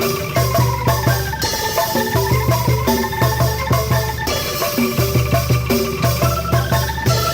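Angklung ensemble playing a tune: shaken bamboo tubes sound pitched notes over a regular beat of low bass notes about twice a second.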